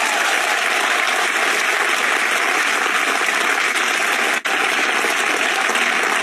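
A large crowd applauding, a steady, dense clapping that holds at an even level throughout, with a momentary drop about four and a half seconds in.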